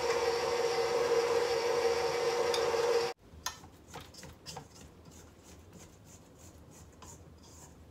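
KitchenAid stand mixer running steadily with a dough hook, a loud even motor hum that cuts off abruptly about three seconds in. After that, faint scraping and light knocks as a spatula scrapes the sides of the stainless steel mixing bowl.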